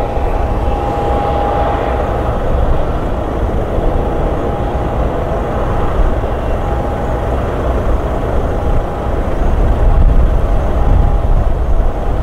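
Airliner jet engines running as the aircraft taxis: a steady low rumble with a thin whine that comes and goes.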